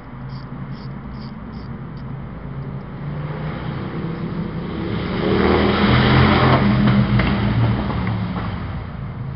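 A motor vehicle passing by, its engine and road noise growing louder to a peak about six seconds in, then fading away.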